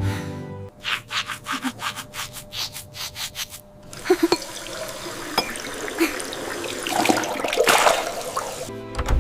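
Rhythmic rubbing or scrubbing strokes, about three a second, followed by a longer hissing rush with scattered clicks.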